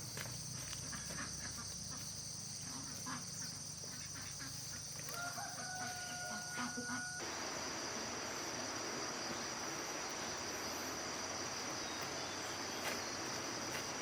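A rooster crows once, a single held call of about two seconds starting about five seconds in, over a steady high-pitched insect drone. Around seven seconds the background switches abruptly to an even hiss.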